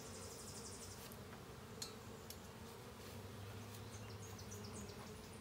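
Honeybees buzzing in a low, steady hum around an open hive, with a couple of faint clicks around the middle.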